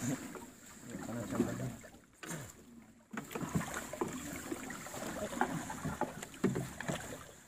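Water splashing and sloshing against an outrigger fishing boat, with scattered knocks as the net with its floats is hauled in over the side. The sound drops away briefly about two seconds in.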